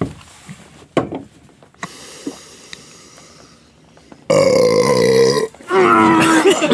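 A man burping loudly: a drawn-out belch of about a second starting about four seconds in, followed straight away by a second, wavering one.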